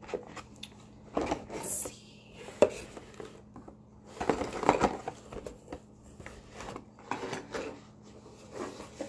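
Small plastic cosmetic tubes and caps being handled: scattered clicks, taps and rustles, the loudest a sharp click a little under three seconds in.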